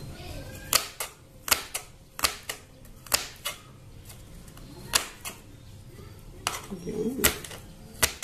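Kitchen knife chopping red onion on a cutting board: sharp, irregular knocks of the blade striking the board, with short pauses between runs of cuts.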